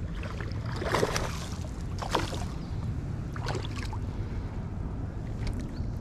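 A hooked largemouth bass splashing and thrashing at the water's surface as it is reeled in, three short splashes about a second apart.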